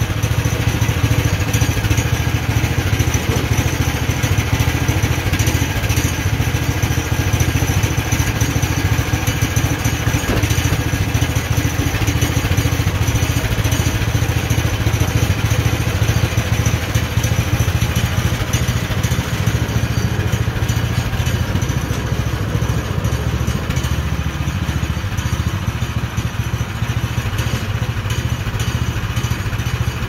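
Forestwest 26-inch sawmill's 15 hp petrol engine running steadily under load while its bandsaw blade, which is not the sharpest, cuts a 14-inch slab from a poplar log. The engine does not bog down through the cut.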